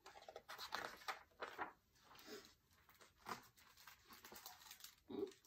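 Faint, irregular rustling and brushing of a picture book's paper pages as the book is handled and a page is turned.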